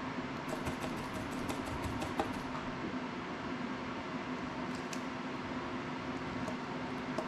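Steady hum and hiss, like a fan running, with faint light clicks of small tools and parts being handled at a soldering bench: a quick run of them about half a second in, then a few scattered ones later.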